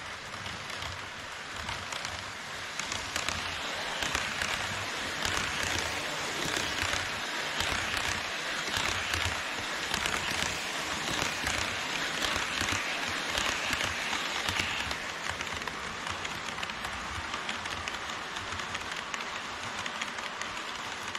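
HO scale model trains rolling over plastic-based KATO Unitrack: a steady rush of metal wheels on rail with a patter of fine clicks. It swells for about ten seconds as an E5 series Shinkansen set passes close by, then settles as a freight train of tank cars follows.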